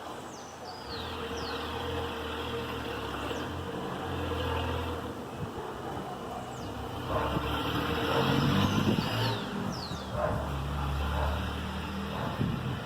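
City street traffic: the low rumble of passing vehicles swells and fades, loudest about two-thirds of the way in. Short, high notes sliding downward come several times over the top.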